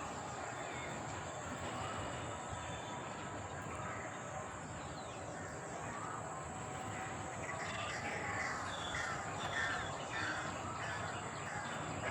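Birds calling: a run of short calls in quick succession from about halfway through, over a steady high-pitched whine and a constant background hiss.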